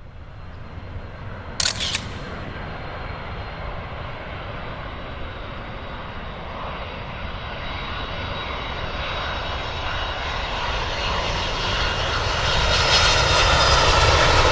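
Airbus A380's four Rolls-Royce Trent 900 turbofans on approach: a steady jet rumble growing gradually louder, with a whining note coming in near the end. A brief sharp knock about two seconds in.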